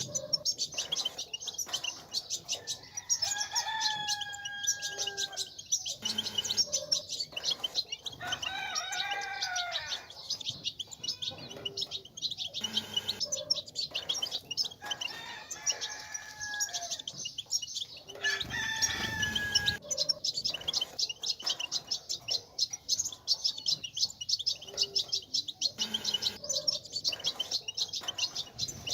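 European goldfinch twittering: a dense, rapid, unbroken stream of high chirps and trills. Several times a longer, lower call cuts in, lasting a second or two each, like a rooster crowing.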